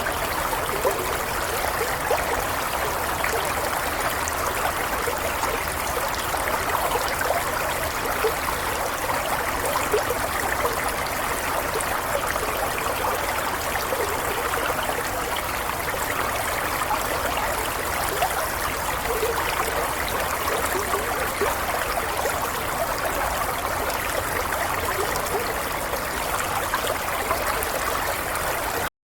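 Running water babbling and gurgling steadily, then cutting off abruptly near the end.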